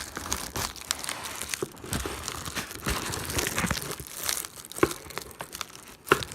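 Packaging crinkling and tearing as it is worked open by hand, with irregular crackles and short sharp clicks and a louder snap near the end.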